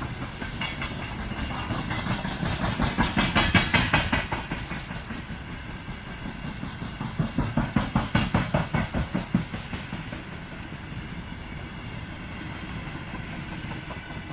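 Freight train of open gondola wagons rolling past, wheels clacking over rail joints in two loud runs of rapid beats, about three and eight seconds in, over a steady rolling rumble. The sound eases off near the end as the last wagons go by.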